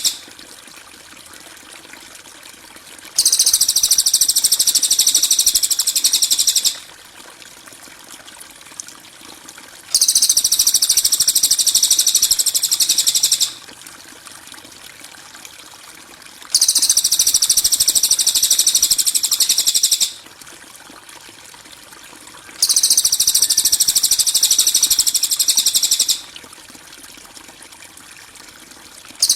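Masteran training recording of a harsh, high-pitched buzzing bird call ('kasaran' type), repeated as a loop. Each burst lasts about three and a half seconds and is followed by about three seconds of pause.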